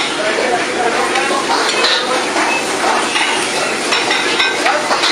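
Busy commercial kitchen clatter: metal ladles and spatulas clinking and clanging against woks and pans without a break, with voices in the background.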